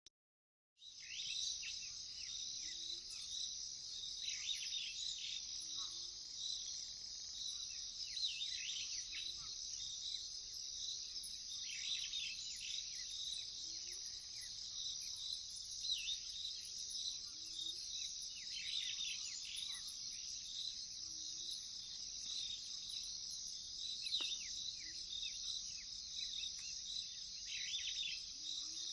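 Steady chorus of crickets and other insects, a dense high-pitched trill, with short calls sweeping downward over it every few seconds and a faint low call repeating about every two seconds. It fades in just under a second in.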